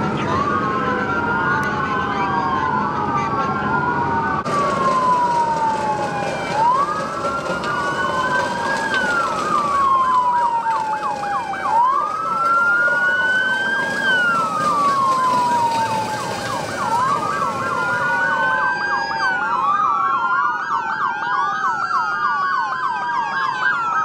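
Several police car sirens wailing at once, their rising and falling tones overlapping, over the rumble of traffic. Faster, higher sweeps join in near the end.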